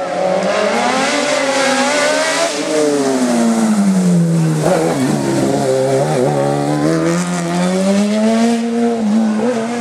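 Race car engine at full throttle on a hill-climb course, its pitch rising, falling and rising again through the gears, with quick throttle blips about halfway through.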